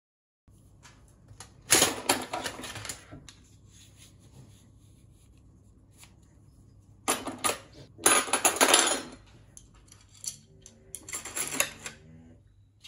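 Metal cutlery and plastic-sheathed knives clattering against each other and a wooden drawer organiser as they are put away and rearranged, in three bouts of rattling.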